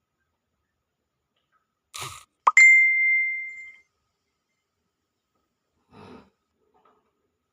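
A quick falling plop and then a bright ding that rings and fades over about a second, with a short noise just before it. A brief, faint noise follows a few seconds later.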